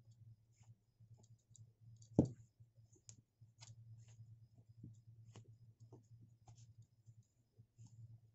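Hands working and knotting macrame cord: scattered faint clicks and rustles, with one louder knock about two seconds in, over a low steady hum.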